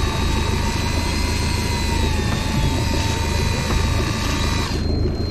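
Boat engine running steadily, with a thin mechanical whine over it that cuts off suddenly near the end.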